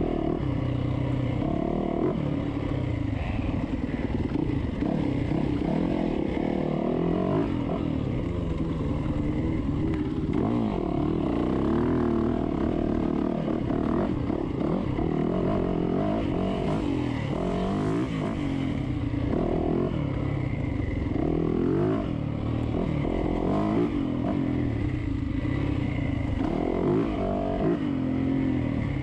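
Dirt bike engine under hard riding, its pitch rising and falling over and over as the throttle is opened and shut through the turns.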